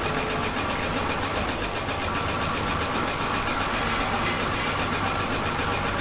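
Electric motor driving a flexible-shaft rotary tool, running steadily while its small disc grinds the rubber of a damaged truck tire sidewall, with a fast, even flutter.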